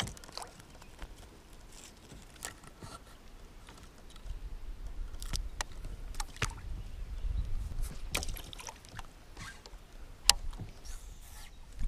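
Scattered sharp knocks and clicks of an angler handling rod and fish in a kayak while landing a hooked bass. A low rumble sets in about four seconds in.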